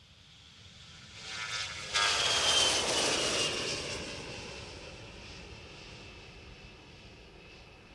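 Antonov An-158 regional jet, on its two Ivchenko-Progress D-436-148 turbofans, flying past in display: the jet noise builds to its loudest about two seconds in, with a high engine whine that drops in pitch as it passes, then fades away.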